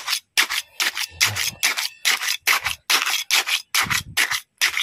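A small steel hand trowel scraping and scooping wet cement mix into a cut-down plastic gallon jug, packing it in tight. The strokes are short and quick, about four a second.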